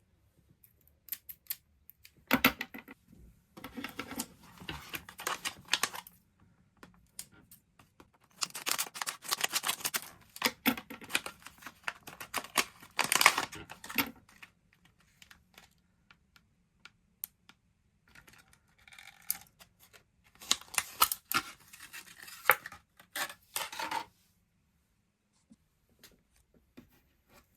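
Toy packaging being handled and opened: crackling, tearing and clicking in three spells, with quiet pauses between.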